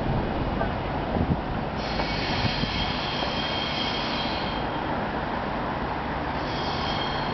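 Stadler GTW diesel railcar's wheels squealing in the distance as it pulls away, thin high tones fading in and out twice over a steady rushing noise, with two dull thumps about one and two and a half seconds in.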